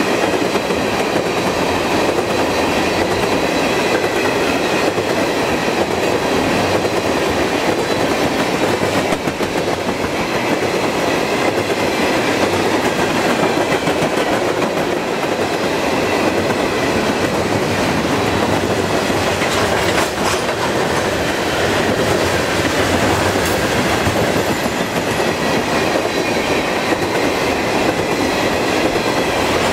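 Freight train of loaded tank cars rolling past: steel wheels clattering over the rail joints with a steady, loud rolling rumble.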